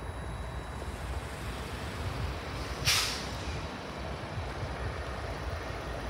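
Distant GE diesel freight locomotives approaching, a low, steady rumble. About halfway through, a short, sharp hiss of released air, the loudest sound.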